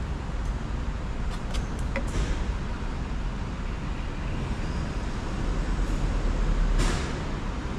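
Steady low background rumble that swells near the end, with a few light plastic clicks about one and a half to two seconds in as the LED turn-signal insert and its wiring are handled at the signal housing.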